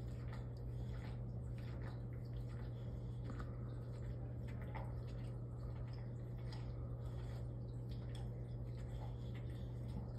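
Steady low hum of running aquarium equipment, with faint irregular ticks and water drips over it.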